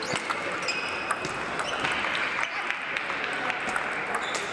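Table tennis balls clicking off bats and tables, with many clicks scattered unevenly from several tables in play at once, over the steady murmur of a large sports hall. A few brief high-pitched squeaks come through as well.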